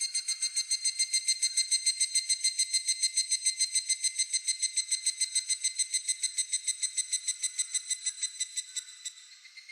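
Higurashi (evening cicada) calling: a rapid, even train of high ringing pulses, about eight a second, that holds steady and fades out near the end. A steady high insect trill runs underneath.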